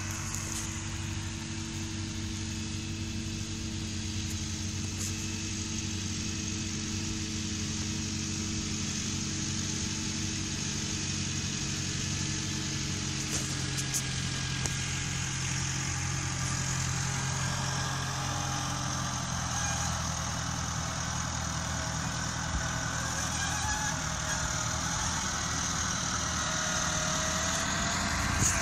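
Diesel engine of a Lindner transporter running steadily as it drives across the grass with a slurry tanker on its back, getting gradually louder as it approaches. A fainter whine joins in about halfway through.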